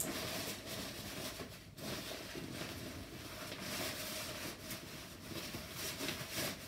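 Fabric rustling and handling noise from a Joolz Aer stroller travel bag as it is lifted upright and opened at the top, with irregular scrapes and small knocks throughout.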